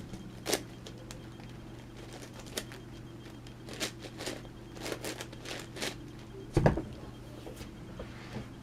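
Plastic clicks and clacks of a large 11x11x11 Rubik's cube as its layers are turned and pieces moved, coming irregularly, with one louder knock about six and a half seconds in.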